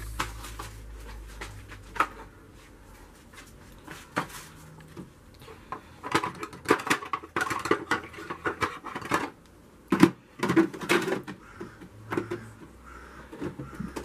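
Hard plastic parts of a Siemens EQ.300 automatic coffee machine clicking, knocking and rattling as the drip tray and coffee grounds container are slid back in and the door is pushed shut. The knocks come sparsely at first, then in quicker clusters, with a sharp knock a little past the middle.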